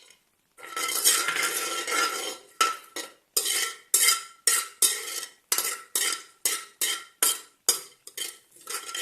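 Metal spoon stirring and scraping in a metal cooking pot while whole spices fry in oil, the pot ringing under the spoon. One long scrape lasting about a second and a half, then short scraping strokes about two a second.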